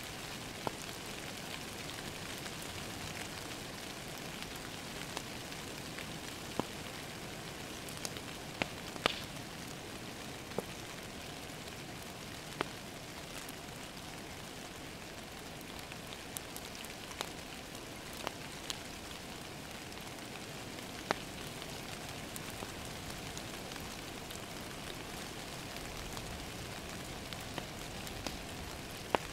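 Steady rain pattering against a window, mixed with a log fire crackling, with sharp pops at irregular moments.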